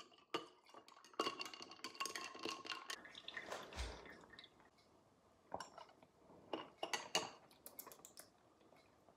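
Espresso poured from a small cup into a tall glass of milk, with a metal straw stirring and clinking against the glass for the first few seconds. A low thump follows, then a few scattered light clinks of the straw and glass.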